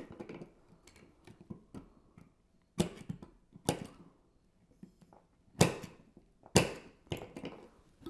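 Wire strippers scraping ceiling paint off a copper ground wire: about five short, sharp scrapes and clicks, a second or so apart, mostly in the second half.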